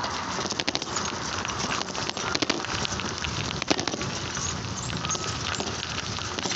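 Bicycle in motion: steady tyre and road noise with many irregular rattling clicks from the bike and the camera's mesh holder.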